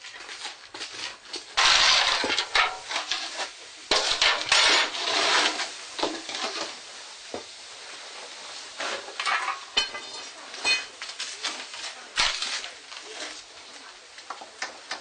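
Metal tools scraping, crunching and clinking against hot charcoal and slag as a bloomery furnace is raked out, with loud bursts of scraping about two and four seconds in. There are a couple of brief metallic rings about ten seconds in.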